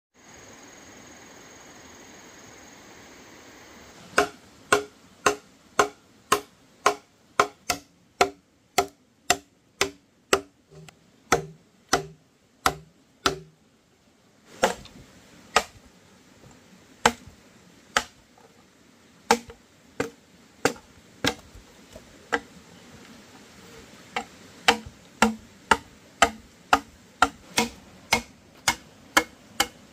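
Repeated chopping strikes of a hand tool on wood, about two a second, starting about four seconds in; after a short break they resume in a less even run.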